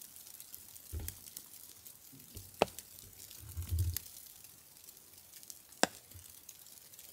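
Faint hiss of a still, snowy night under a tent fly, broken by two sharp ticks and a couple of soft low thumps.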